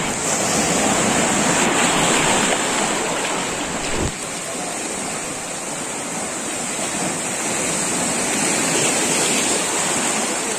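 Sea surf surging and rushing over boulders in a narrow rocky inlet: a steady, loud wash of white water, with a single brief knock about four seconds in.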